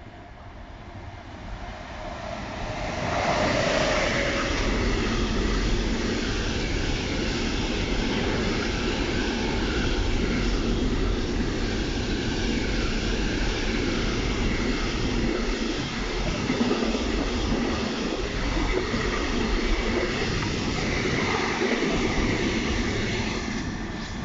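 Intermodal container freight train, hauled by an E193 Vectron electric locomotive, passing through a station at speed. The noise builds over the first three seconds or so as the locomotive comes up, then holds as a steady loud rush and clatter of container wagons rolling by.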